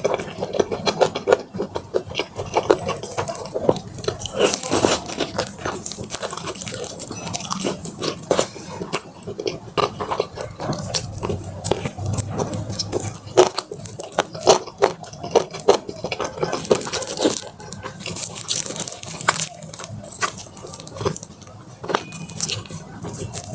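Close-miked biting and chewing of crispy Korean fried chicken drumsticks: dense, rapid crackly crunches of the fried coating, with wet chewing between bites.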